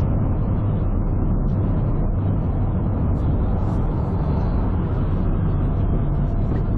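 Steady, loud road and engine noise inside a moving car, picked up by a dashcam microphone while driving at highway speed.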